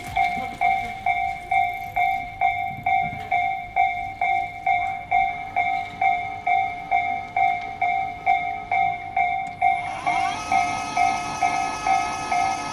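Japanese railway level crossing's electronic warning bell ringing at a steady pace of about two strikes a second. About ten seconds in, a rising electric whine joins it, typical of an approaching electric train's motors.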